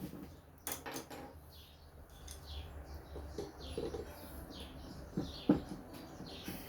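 Small birds chirping repeatedly, a few short downward-sliding chirps each second, with a couple of sharp clicks or knocks among them.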